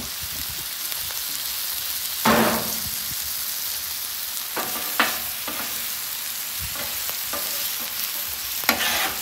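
Ribeye steaks sizzling in avocado oil and butter on a hot flat top griddle, a steady frying hiss with a louder surge of sizzle about two seconds in. Near the end, metal spatulas click against the griddle as a steak is moved.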